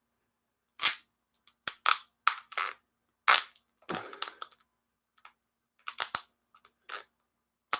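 Plastic cheese packaging being worked open by hand and with a knife: a series of irregular crinkles and crackles, stopping and starting.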